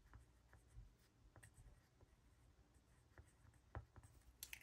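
Colored pencil scratching faintly on paper, drawing short squiggle swatches in a few light strokes.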